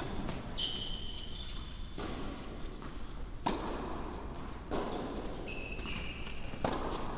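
Tennis rally on an indoor hard court: sharp racquet-on-ball strikes and ball bounces about every second or so, with a few short squeaks from shoes on the court surface.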